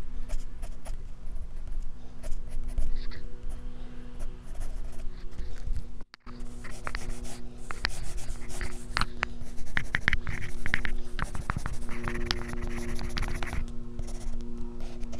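Graphite pencil scratching across drawing paper in sketching and shading strokes. The strokes turn into a quick run of short flicks in the second half, densest near the end as the grass is drawn, with a brief cut-out about six seconds in.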